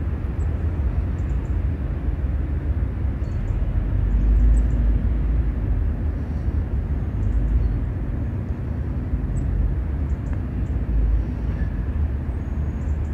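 Steady low rumble of road traffic, with faint, short, high bird chirps scattered throughout.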